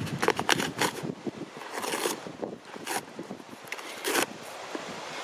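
A husky ripping open a cardboard box with its teeth and paw: a run of crackling rips and scrapes of cardboard and paper, with louder tears about two, three and four seconds in.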